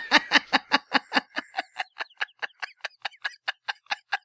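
A person laughing in a long run of quick, breathy "heh" pulses, about five a second, slowly tapering off.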